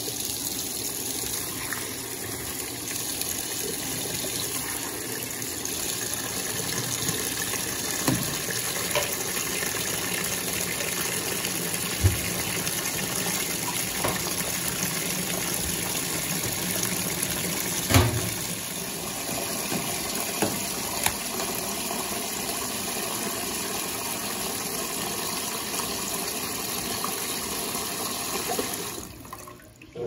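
Brastemp Baby Mondial BLK20 top-loading washing machine filling its tub with water for the rinse cycle: a steady rush of incoming water, with a few brief knocks. The fill stops abruptly about a second before the end.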